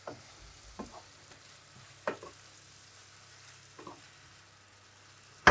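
A wooden spoon stirring cubed tofu and carrot in a frying pan, with a few scattered scrapes and taps of the spoon on the pan over a faint sizzle. A sharp burst of knocks starts at the very end.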